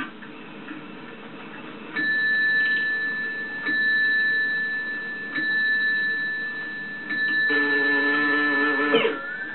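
Cartoon soundtrack playing from a television: a steady high-pitched tone sets in about two seconds in and holds, stepping louder several times. Other pitched cartoon sounds join near the end, closing with a quick falling swoop.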